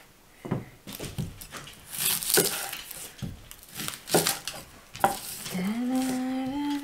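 Chef's knife cutting an onion on a wooden cutting board: a string of separate crunching chops and knocks. About five and a half seconds in, a woman starts humming a note that rises, then holds.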